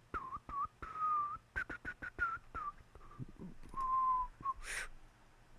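A person whistling softly to himself: a string of short gliding notes and a couple of longer held ones, with light clicks in between.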